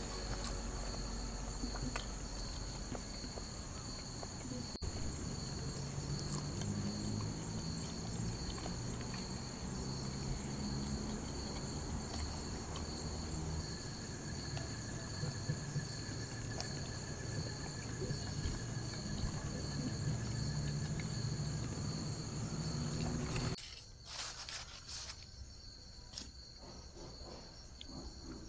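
Steady night chorus of crickets and other insects, a continuous high-pitched shrilling in two even tones, over a low background rumble. Near the end the sound drops off abruptly and the insect tone carries on fainter.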